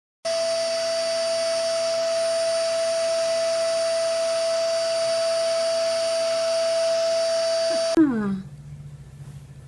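A small electric motor running steadily, a constant whine over a hiss, which cuts off abruptly about eight seconds in. A short falling call, voice- or meow-like, follows over a low hum.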